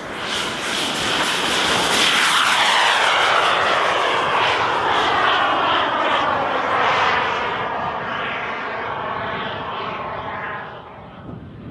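Swiwin SW120B turbine of an Xcalibur RC jet flying past: the rushing whine swells to a peak a few seconds in, then its pitch slides steadily down and the sound fades as the jet moves away.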